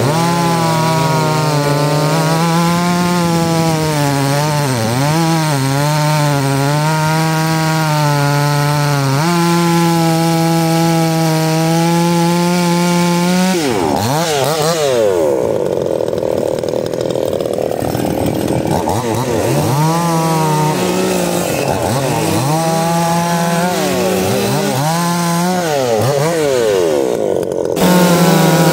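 Two-stroke chainsaw cutting wood, its engine pitch dipping under load in the cut and rising again between cuts. About halfway through the sound turns duller, then brightens again abruptly near the end.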